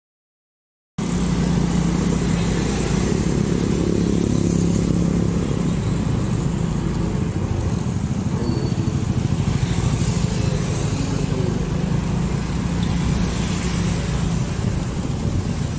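Riding on a motorcycle: its engine runs steadily, mixed with the noise of surrounding street traffic. The sound cuts in suddenly about a second in, after silence.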